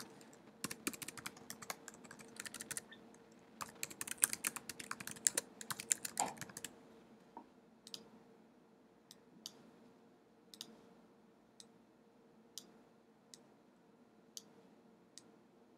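Typing on a computer keyboard: two quick runs of keystrokes over the first seven seconds, as a web address is typed. Then scattered single clicks, about one a second.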